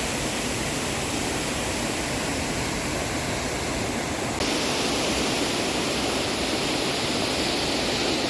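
Steady rushing of river water flowing over rocks, growing a little louder and hissier about four seconds in.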